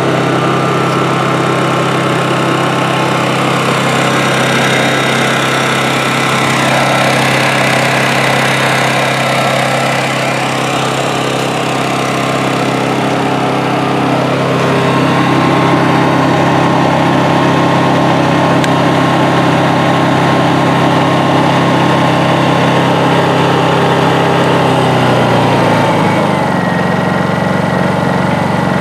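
Honda EU2200i inverter generator's small single-cylinder four-stroke engine running steadily, freshly started and warming up for break-in. Near the end the engine speed drops a little and settles at a new steady pitch.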